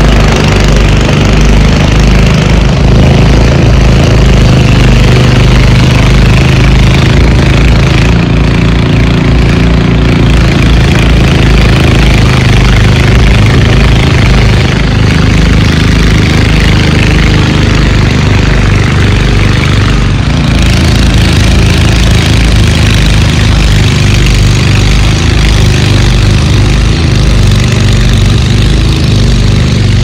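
Walk-behind gas snowblower running steadily under load as it clears deep snow, its small engine holding an even, unbroken drone.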